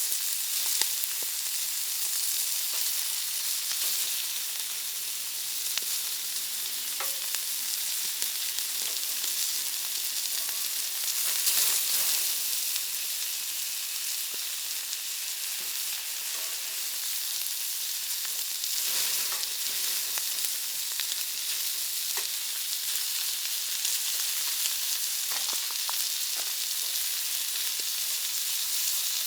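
Pork belly sizzling steadily on a hot griddle, with small pops and spatters of fat. The sizzle swells louder twice, about 12 and 19 seconds in.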